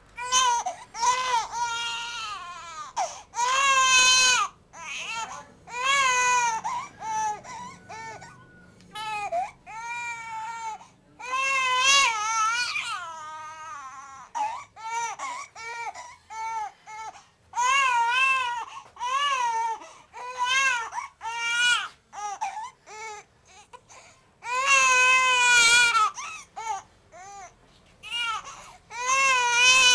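Two-month-old baby crying: repeated high wails, a few held for a second or two, broken by shorter sobbing cries and brief gasps between them.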